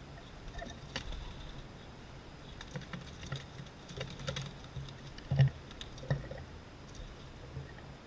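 A large bird clinging and flapping at a mesh tube seed feeder: scattered clicks, taps and scrabbling of claws and wings against the feeder, with a heavier thump about five and a half seconds in.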